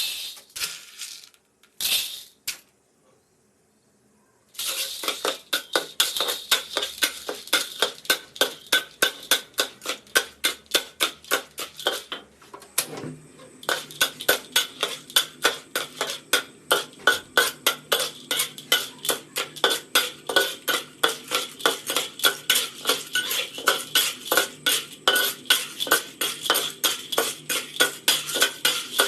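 A metal utensil stirring round a metal pot in steady, even strokes, about three to four a second, with a clink and scrape on each stroke. It starts after a few clinks and a near-silent pause, breaks briefly around the middle with a single knock, then carries on.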